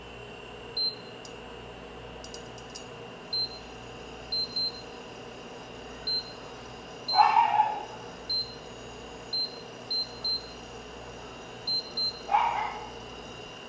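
Induction cooktop's touch-control panel beeping: a dozen or so short high beeps at uneven intervals as its buttons are pressed to set the heat. Two louder short cries, one about seven seconds in and one near the end, stand out over the beeps.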